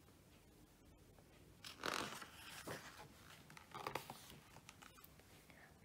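Pages of a hardcover picture book being turned and handled: soft paper rustling and brushing in a few short bursts, starting about two seconds in.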